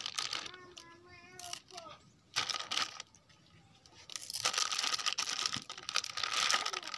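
Clear plastic bag lining a cooking pot crinkling and rustling as hands shift the green bananas packed inside it. The crinkling is loudest in the second half. A short wavering cry comes about a second in.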